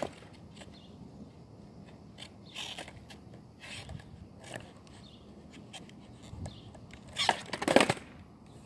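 Close contact noise on a phone microphone: scattered short scrapes and crackles, with a louder spell of rustling and scraping about seven seconds in.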